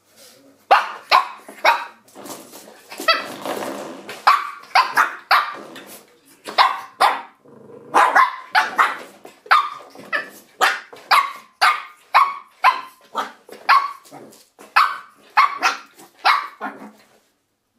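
Shih Tzu puppy barking over and over in short, sharp barks, about two a second, starting about a second in and stopping just before the end.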